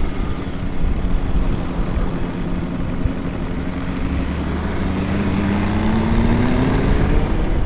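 Ducati motorcycle engine running under way, heard from the bike with wind noise rushing over the microphone. The engine note climbs steadily through the second half as the bike accelerates.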